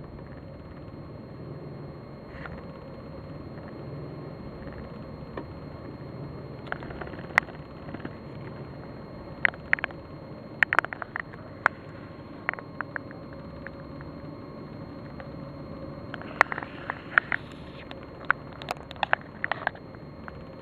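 Ford EL Fairmont Ghia engine idling roughly, a steady low hum that the owner blames on a faulty engine computer or distributor. The car runs rough on both LPG and petrol and stalls often. Sharp clicks come in scattered clusters, mostly through the middle and later part.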